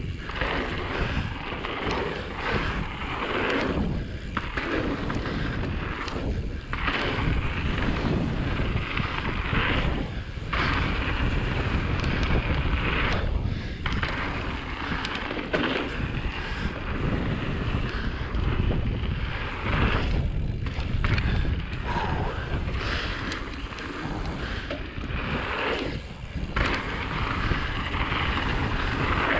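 Mountain bike tyres rolling fast over a packed dirt trail, mixed with wind buffeting the microphone. The noise swells and dips every few seconds.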